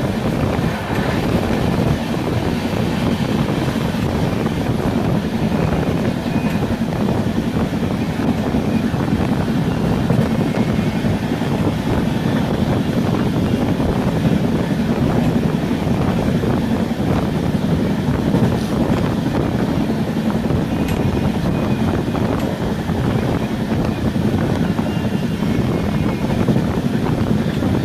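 Moving train running steadily: a continuous low rumble of wheels on track, with wind noise over it.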